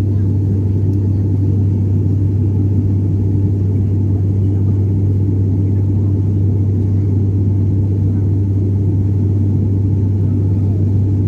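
A loud, steady low-pitched drone or rumble that holds without change throughout.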